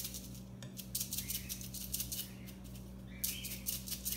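Plastic seasoning shaker shaken over a glass bowl of egg and vegetable mix, its grains rattling in quick repeated shakes, several a second, from about a second in.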